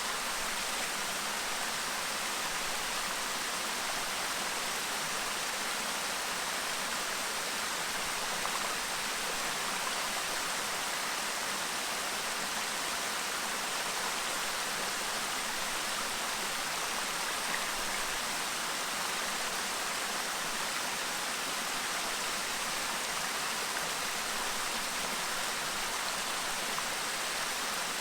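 Clear shallow stream babbling over rocks: a steady, even rush of flowing water.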